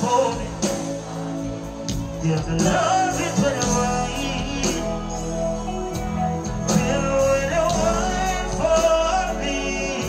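Male vocalist singing live into a microphone over loud music.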